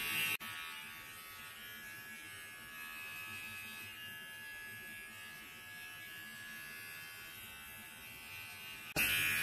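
Wahl Mini Arco cordless pet trimmer running steadily with an even hum as it shaves the fur between a puppy's paw pads. There is a click about half a second in, after which it runs more quietly.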